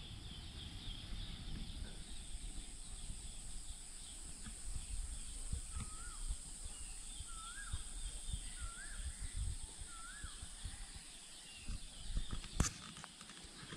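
Outdoor countryside ambience: a steady high-pitched insect drone, with a bird repeating a short wavering whistle four times, about a second and a half apart, in the middle. Low wind rumble on the microphone underneath, and a couple of sharp clicks near the end.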